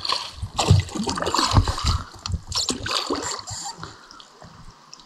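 Oars dipping and splashing in calm seawater as a small dinghy is rowed, with water dripping and gurgling; a few uneven strokes, growing quieter after about four seconds.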